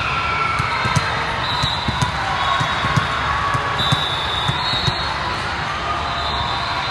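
Volleyballs thudding on hands and the gym floor again and again, about two a second, over the steady din of a large hall with voices.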